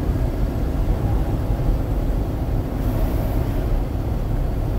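Steady low rumble of engine and road noise inside the cab of a truck driving along at speed.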